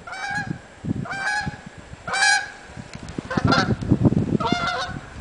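Ducks giving loud, honking calls, five short calls about a second apart. Low thumps and rustling run underneath.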